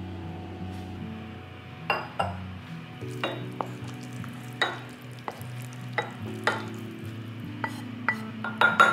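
A spoon scraping and knocking against a nonstick frying pan as saucy rice cakes and noodles are pushed out into a bowl: about ten short, sharp scrapes, loudest in a quick cluster near the end, over a faint sizzle from the hot pan. Soft background music plays underneath.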